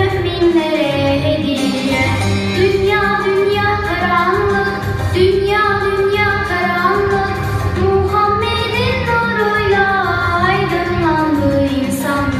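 A children's song playing: a sung melody in a woman's and children's voices over a backing track with a steady low beat.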